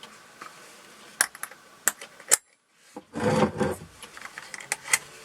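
Sharp little clicks and taps of a metal clasp and tab on a leather tool pouch being handled, with a short stretch of dead silence midway and a spell of rustling handling noise after it.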